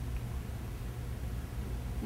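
Quiet room tone: a steady low hum with faint hiss.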